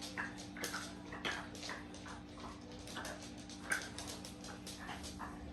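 Puppy whimpering softly in short high chirps, with scattered small clicks and mouth noises, over a faint steady hum.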